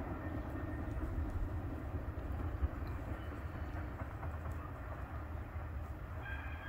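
Distant rumble of a freight train, an empty oil train of tank cars, rolling away down the line. The wheel noise slowly fades, and a thin high tone joins near the end.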